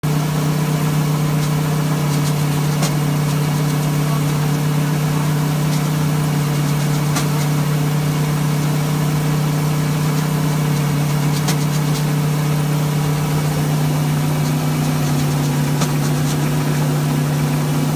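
An engine runs at a steady speed, making an even drone, while canola pours from a hopper-bottom grain trailer into a drive-over hopper feeding a 13-inch grain auger. A few faint ticks are scattered through it.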